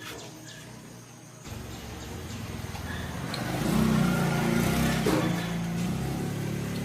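A motor vehicle's engine running, starting about a second and a half in, growing steadily louder to a peak, then easing a little.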